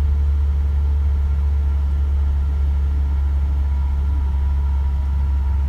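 Steady low drone of an Isuzu FVR diesel truck's engine and road noise, heard from inside the cab while it drives along at an even pace.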